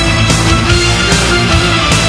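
Background music: loud heavy rock with a steady beat.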